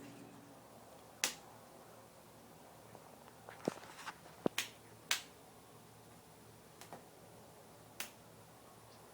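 Sharp, separate clicks from a greater roadrunner's bill, with a quick cluster in the middle.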